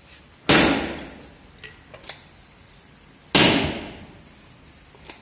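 Two heavy hammer blows on the steel press roll assembly of a pellet feed mill, about three seconds apart, each ringing briefly like struck metal. A couple of faint metal clinks fall between them.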